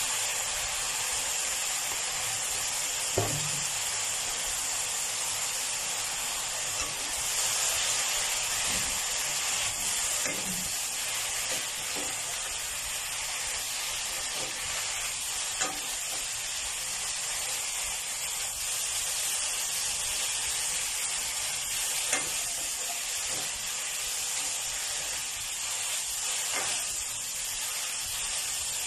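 Amaranth greens and minced meat sizzling in a nonstick wok with a steady hiss, while a spatula stirs and scrapes through them. A few short knocks of the spatula against the pan, the sharpest about three seconds in.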